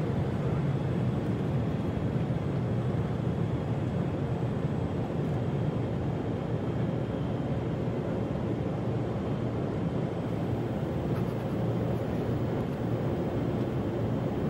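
Steady aircraft cabin noise: an even, unbroken low rumble of engines and rushing air, with faint steady tones riding on it.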